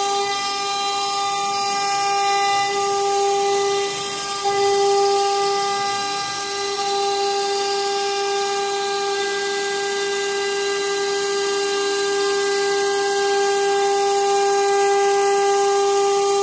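CNC router spindle running with a steady high whine as its V-bit carves a pattern into a wooden door panel, with a brief dip about four seconds in.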